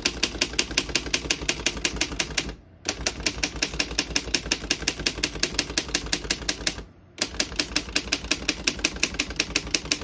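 Manual keystrokes on a 1936 Underwood No. 12 typewriter: type bars striking the platen in quick, even clicks, about eight a second, in three runs broken by two brief pauses.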